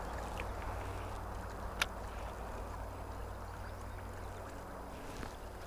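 Shallow creek water running over rocks: a steady rushing hiss, with a low steady rumble underneath. One sharp click about two seconds in.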